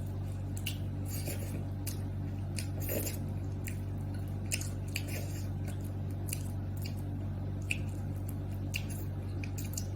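Steady low hum with scattered light clicks and soft, wet handling sounds.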